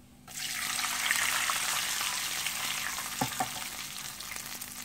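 Water poured into a hot nonstick wok of melted ghee and roasting sliced almonds and pistachios, sizzling as it hits the hot fat and slowly dying down. Two light knocks a little after three seconds in.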